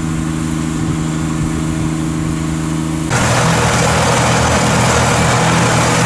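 Heavy engine idling steadily. About three seconds in, the sound jumps suddenly to a louder, hissier machine noise with a deeper engine note under it.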